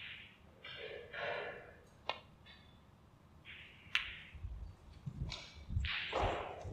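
Snooker shot: a sharp click of the cue tip on the cue ball about two seconds in, then a second crisp click about two seconds later as the cue ball strikes a red. Soft breathy noises come and go around the clicks.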